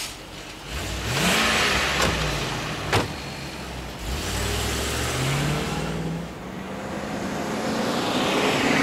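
Land Rover Discovery II SUV engine starting and revving, with two sharp door slams about two and three seconds in. The SUV then accelerates away and drives past, its engine and tyre noise building near the end.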